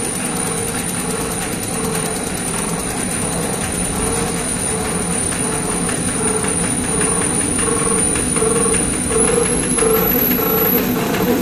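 DBGS-370B label finishing machine running: a steady mechanical clatter of rollers and the die-cutting and slitting units, with a repeating beat and a thin high drive whine. Near the end the whine steps up in pitch three times as the running speed is raised.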